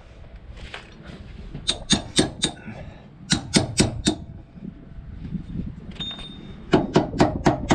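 Hammer blows on metal, driving a nylon bush into a caravan leaf spring hanger through a socket. There are two quick runs of four ringing strikes, then a faster run near the end.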